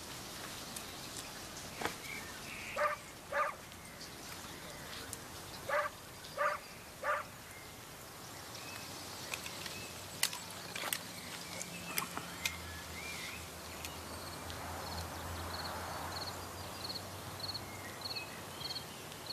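Rural outdoor ambience with an animal calling five times in short pitched calls, two and then three. Several sharp clicks follow around the middle, and a fast, high chirping sets in near the end.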